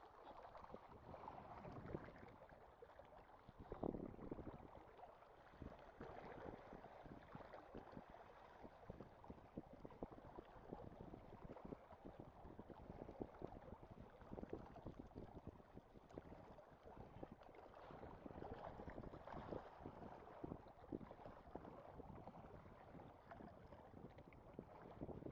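Faint, continuous lapping and washing of small sea waves against a rocky shore.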